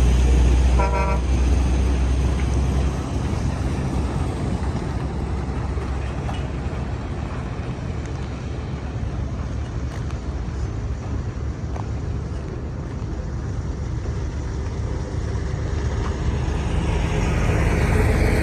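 Road traffic with a heavy engine rumbling, and one short vehicle horn toot about a second in. The low rumble eases after about three seconds into a steady traffic rush, which grows louder again near the end.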